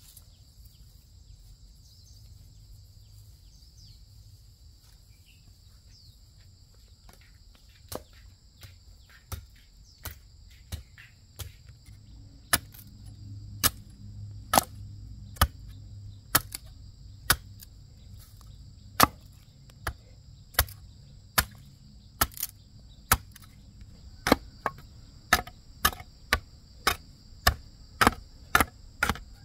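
Machete blade chopping a bamboo stake held upright on a wooden stump, shaping its end to a point: sharp single blows, a few scattered from about eight seconds in, then about one a second, quickening near the end. Insects shrill steadily underneath.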